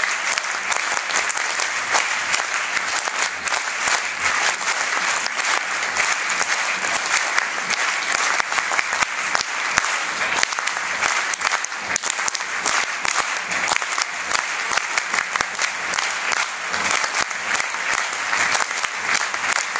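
Stadium crowd applauding, many hands clapping steadily without a break.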